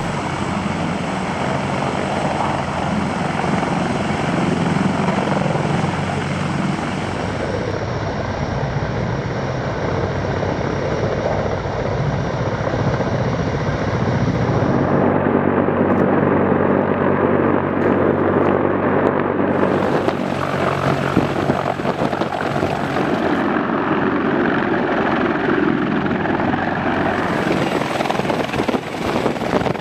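CH-53E Super Stallion heavy-lift helicopter hovering close by: steady three-turbine and rotor noise throughout. The tone shifts abruptly several times where the footage cuts between shots.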